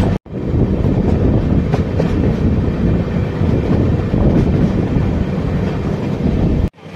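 Indian Railways passenger train running at speed, heard from an open coach doorway: a steady, heavy rumble of the wheels on the track. The sound breaks off sharply for a moment just after the start and again near the end.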